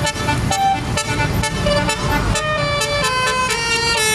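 Bus telolet horn playing a tune of stepped notes, the notes held longer in the second half, over a low engine rumble.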